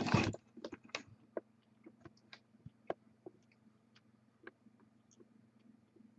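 Sparse light clicks and taps, with a short rustling burst at the very start, over a steady low electrical hum.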